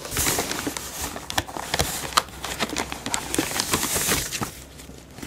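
Plastic packing sheet and foam rustling and crackling as hands dig into a cardboard box, with many small irregular clicks and knocks.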